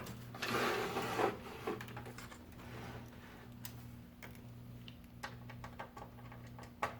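Hands handling cables and a PC case: a scraping rustle about half a second in, then scattered light clicks and taps as the cables are unplugged, over a steady low hum.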